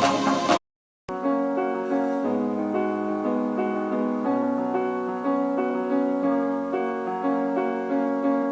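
Music played on the Aodasen JY-23 portable Bluetooth speaker. A busy electronic dance track cuts off about half a second in, and after a brief silence a piano or electric keyboard starts playing repeated chords in a steady rhythm.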